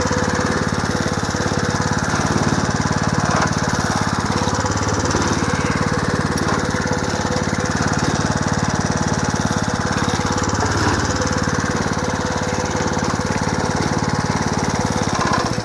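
Small 3.5-horsepower engine running steadily, driving the reciprocating plunger of a miniature hay press as hay is fed in.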